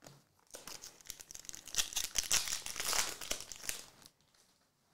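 Foil trading-card pack wrapper being torn open and crinkled, a dense crackling that starts about half a second in and lasts about three and a half seconds.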